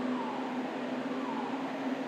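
Steady machinery hum aboard a heavy-lift vessel, a constant low tone under a noisy rush, with a faint falling whine that repeats about once a second.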